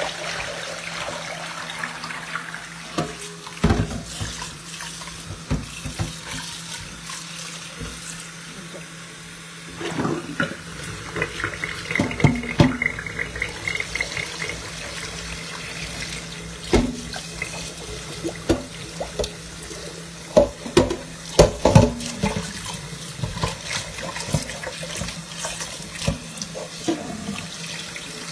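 Kitchen tap running into a stainless steel sink while things are rinsed by hand, with scattered knocks and clinks of a bowl and a glass jar against the sink.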